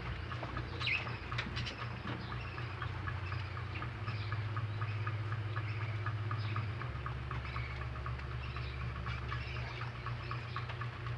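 Several baby rabbits chewing fresh vegetables: a fast, continuous run of small crisp crunching clicks, with a steady low hum underneath.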